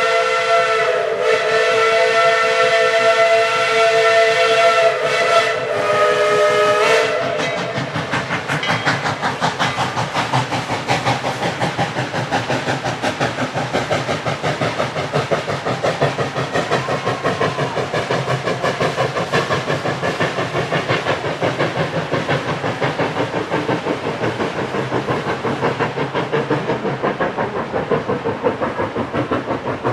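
Steam locomotive whistle sounding one long chord of several notes together for about seven seconds, then cutting off. After it comes the steam locomotive's rapid, steady exhaust chuffing as it works the train.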